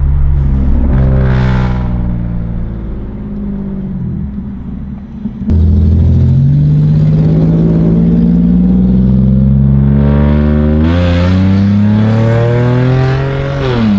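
A Holden Commodore SV6's 3.6-litre V6 with a straight-piped exhaust, loud inside the cabin, under acceleration. The revs climb about a second in and ease off. Halfway through the throttle opens sharply and the revs rise steadily, then faster, until they drop off at the end.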